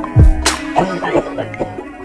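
Instrumental hip hop beat: a deep kick drum about a quarter second in and a sharp snare-like hit about half a second in, over sustained pitched synth or instrument notes.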